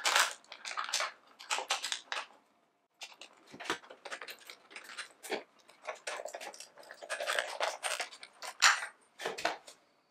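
Clicking, scraping and rattling of a bicycle saddle and its seat clamp being handled and fitted onto a seat post, in short irregular bursts.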